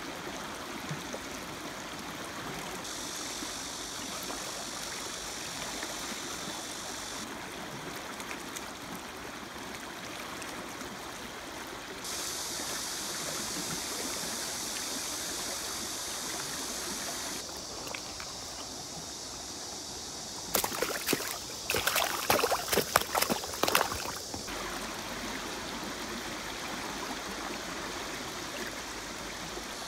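Shallow river riffle running around wading legs: a steady rush of flowing water. About twenty seconds in, a few seconds of loud, sharp knocks break over it.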